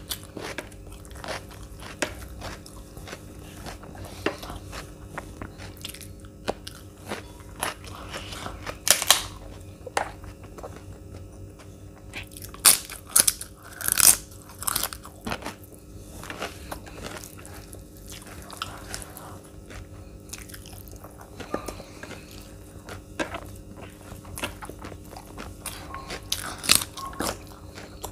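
Close-miked eating sounds: a person chewing mouthfuls of roti and curry eaten by hand, with many small clicks and several louder crunchy bites, clustered about a third of the way in, around halfway, and near the end. A faint steady hum sits underneath.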